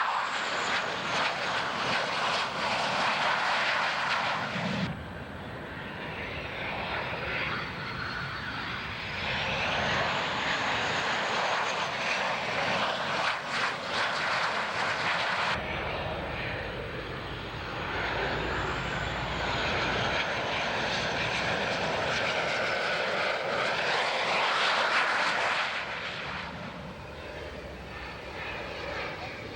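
Jet aircraft engines roaring as planes fly by, with a high whine that slides down and back up in pitch as they pass. The sound changes abruptly about five and fifteen seconds in.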